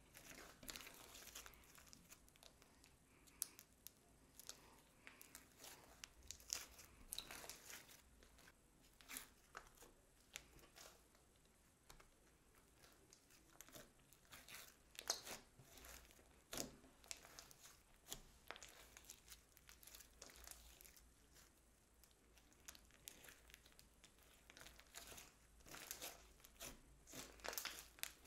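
Glossy slime being kneaded, stretched and pressed by hand, giving quiet, irregular sticky crackles and pops.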